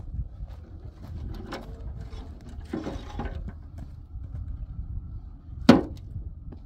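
Broken bricks thrown by hand into a metal wheelbarrow: scattered clunks and scrapes of masonry on the steel tray, the loudest clang near the end, over a steady low rumble.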